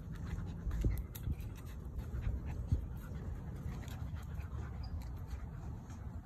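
A Dalmatian and a Miniature Pinscher play-wrestling, their paws scuffling on dry dirt as scattered soft clicks over a steady low rumble.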